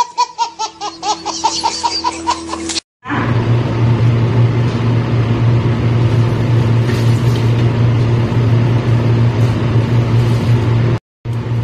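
A baby laughing in a quick run of high, repeated squeals, about five a second, that cuts off abruptly about three seconds in. After that there is only a steady low hum.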